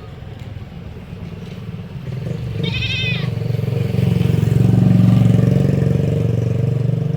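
A motor vehicle engine running, growing louder from about two seconds in to a peak in the middle, then easing a little. A brief high-pitched call sounds about three seconds in.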